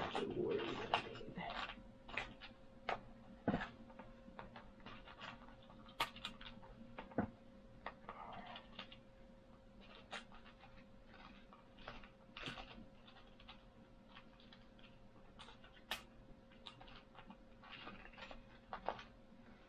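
Scattered light clicks, taps and rustling as small carburetor parts and tools are handled, with a faint steady hum underneath.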